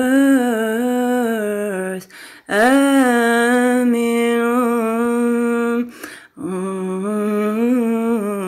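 A woman's voice humming a slow wordless melody unaccompanied, in long held notes, with two short breaths between phrases.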